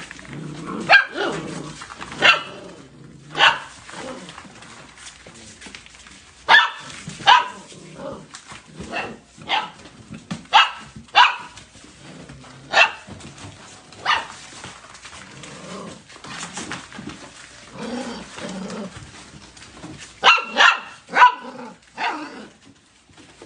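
Golden retriever puppies barking in short, sharp barks, one at a time with gaps between, then a quick run of three near the end.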